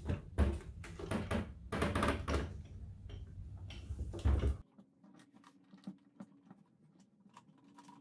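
Plastic clicks and knocks of a SAAB 9-3 fuel pump module being handled and worked down into the fuel tank opening, over a low rumble of handling noise. About halfway through the sound drops off suddenly to a few faint ticks.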